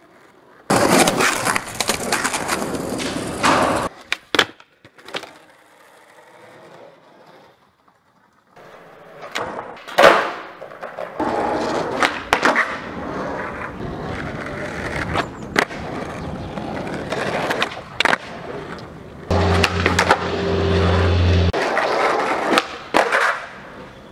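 Skateboard wheels rolling on concrete pavement, broken by sharp tail pops and board landings, the loudest impact about ten seconds in. A low steady hum joins the rolling for a couple of seconds near the end.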